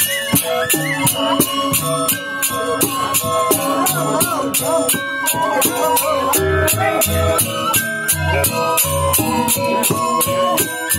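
Balinese gamelan angklung ensemble playing: tuned metallophones ringing over a quick, steady clash of small cymbals, about four a second. Deep low tones, from drum or bass metallophone, join about halfway through.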